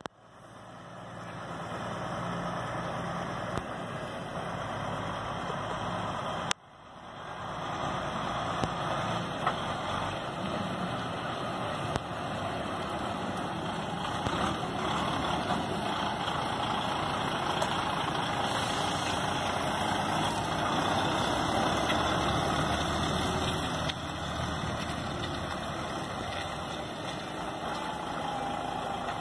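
DAF XF 460 tractor unit's six-cylinder diesel engine running steadily as the truck drives slowly around at low speed. The sound drops out sharply about six and a half seconds in, then builds back up over a second.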